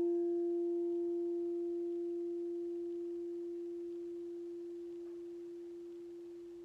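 Singing bowl ringing out after a strike: one steady low tone with faint higher overtones, slowly fading.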